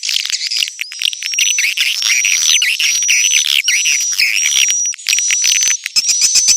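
Recorded calls of edible-nest swiftlets, used as a lure sound for swiftlet houses: dense high chittering and clicking, with short high tweets repeating about twice a second.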